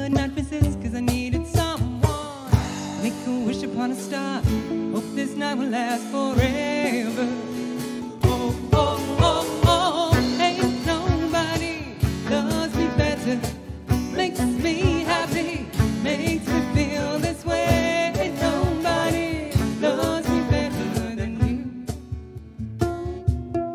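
Live acoustic band music: strummed acoustic guitar and hand percussion keeping a steady beat under a violin melody with vibrato. The beat drops out briefly about four seconds in, then comes back.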